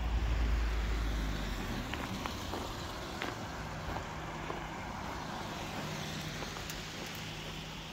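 Cars passing on a wet road, engine and tyre noise loudest about a second in and slowly fading, with a steady low engine hum in the second half.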